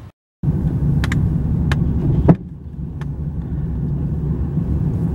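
Car driving along a street, heard from inside the cabin: a steady low rumble of engine and road noise that starts abruptly a moment in, with a few sharp knocks, the loudest about two seconds in.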